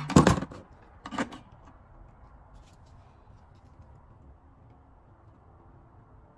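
Small tools and parts handled on a workbench during soldering: a quick cluster of hard clicks and clacks at the start and another short one about a second in, then only a faint steady hum.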